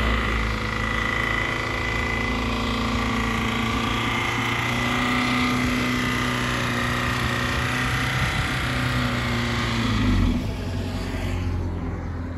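Mercedes car engine running steadily, its note dropping about ten seconds in before settling lower.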